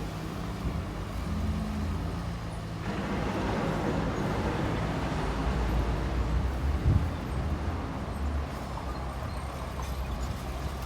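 Bulldozer's diesel engine running with a steady low hum; about three seconds in, a louder rushing noise joins it and carries on.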